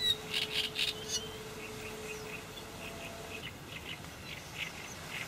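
Small birds chirping a few short times at the waterside, with a faint steady hum underneath that stops about three and a half seconds in.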